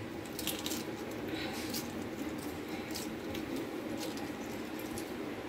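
Scattered small crackles and clicks of shell being picked off a boiled egg by hand, over a steady low hum.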